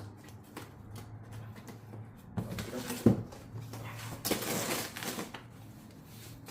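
A cardboard box and its packaging being handled and opened: small clicks and scrapes, a sharp knock about three seconds in, then about a second of rustling and sliding.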